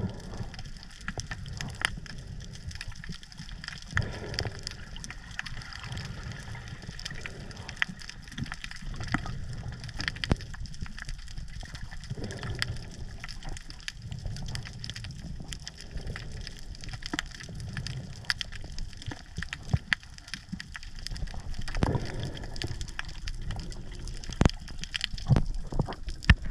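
Underwater ambience picked up by a camera in its housing: a low, muffled water rumble with many scattered sharp clicks, swelling louder a few times near the end.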